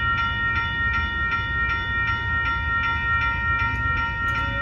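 Railroad grade-crossing warning bell ringing rapidly, about four strikes a second, each strike ringing on, over a steady low rumble.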